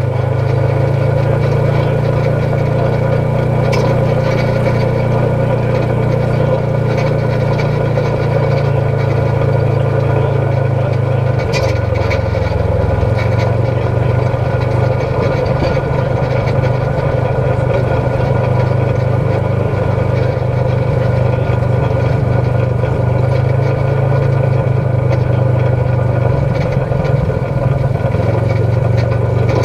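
Polaris RZR XP 1000 side-by-side's twin-cylinder engine running steadily as it drives along a gravel track. Its note drops briefly about twelve seconds in, then picks back up.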